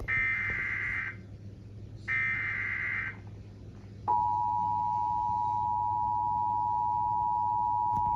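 Emergency Alert System header: two harsh, screechy digital data bursts (SAME header) about a second each and a second apart, then about four seconds in the steady two-tone EAS attention signal starts. This marks the start of a new emergency alert broadcast.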